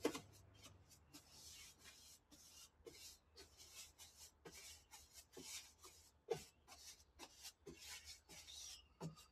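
Paintbrush strokes scrubbing paint onto the bare sheet-metal floor of a Toyota Hilux cab: a run of faint, short, scratchy swishes, about one or two a second, with a sharp click right at the start.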